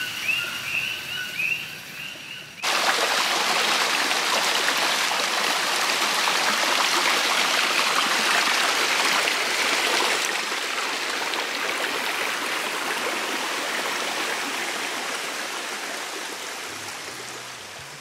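Water of a shallow rocky stream running over stones, a steady rushing hiss that starts abruptly about two and a half seconds in and fades away gradually over the last several seconds.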